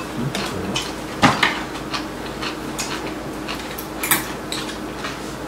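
Spoons and chopsticks clinking and tapping against bowls and plates during a meal, with scattered light clinks and two louder ones, about a second in and near four seconds.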